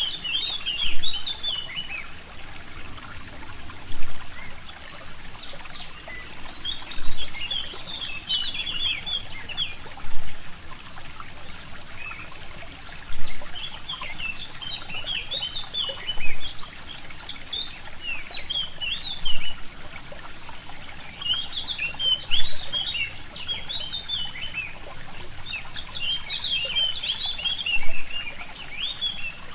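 Forest stream trickling steadily, with songbirds singing in bouts of quick twittering phrases. The water swells briefly about every three seconds.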